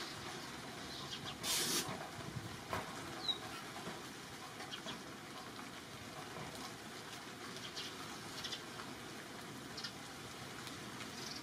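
Outdoor tree-canopy ambience: a steady hiss with a brief rustle about a second and a half in, a single short high chirp about three seconds in, and scattered faint clicks.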